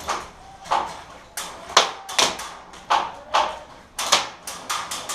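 A series of sharp knocks at an uneven pace, about two a second, each with a short echo.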